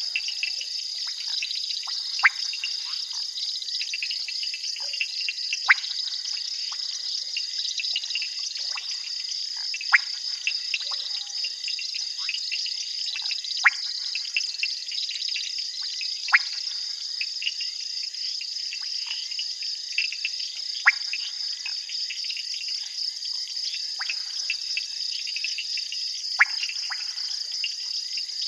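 Night chorus of crickets and frogs: a steady high-pitched insect trill, with short loud frog calls every few seconds that drop quickly in pitch.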